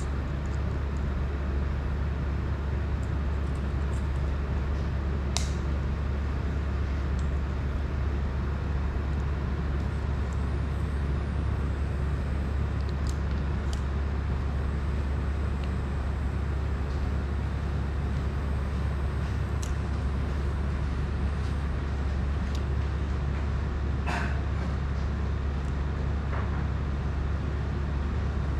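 Steady low mechanical hum at an even level, with a few faint clicks and taps from small parts and tools being handled on the workbench.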